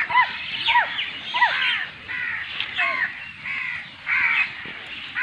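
A large herd of goats bleating as they walk: short, arched calls from many animals overlapping, about two a second.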